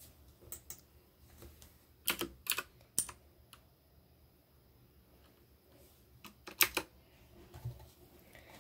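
Keys of a computer keyboard pressed a few at a time: sharp clicks in short clusters of two or three, with pauses of a few seconds between.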